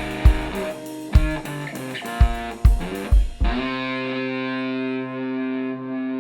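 Instrumental rock music: distorted electric guitar over a beat. The beat stops about three and a half seconds in, leaving a held chord ringing.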